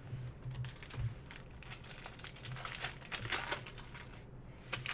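Crinkling and crackling of a trading-card pack's plastic wrapper being handled and torn open, a continuous run of small crackles.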